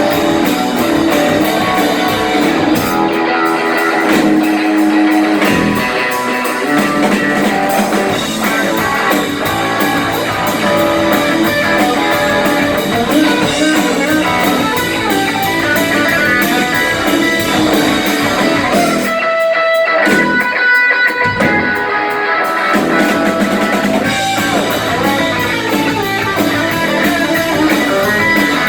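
A blues-rock band playing live, with electric guitar to the fore over a drum kit. About two-thirds of the way through, the drums and low end drop out for a few seconds, leaving mostly guitar, before the full band comes back in.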